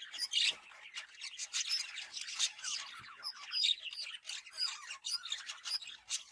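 Budgerigars chattering: a dense, continuous run of short, rapid chirps and squawks.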